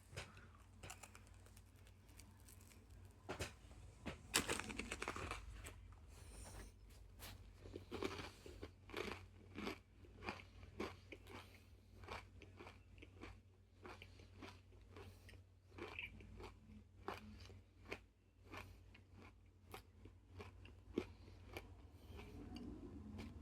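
Crunching bites and chewing of a Nature Valley Crunchy Peanut Butter granola bar, a hard, crumbly oat bar. The first bite comes about four seconds in and is the loudest; irregular crunches follow as it is chewed.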